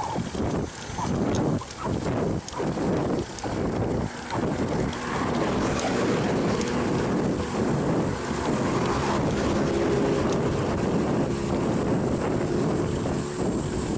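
Wind buffeting the microphone, gusting unevenly for the first few seconds and then rushing steadily, with a faint hum underneath.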